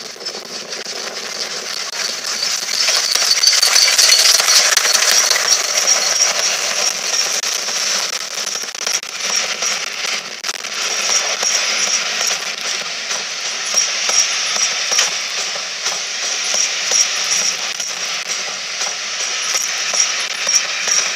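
A steam-hauled train passing close along a station platform: wheels rattling and clattering over the rails with a steady high squeal on top. It is loudest about four seconds in as the locomotive goes by, then the coaches keep rolling past.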